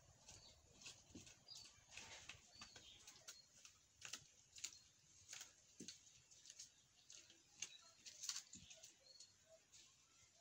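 Near silence: faint outdoor ambience with scattered soft clicks and a few faint, short bird chirps.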